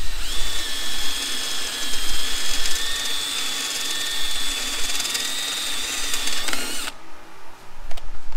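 DeWalt cordless drill boring through the steel panel of a wire welder with a dull bit: a steady high whine that dips slightly and cuts off suddenly about seven seconds in.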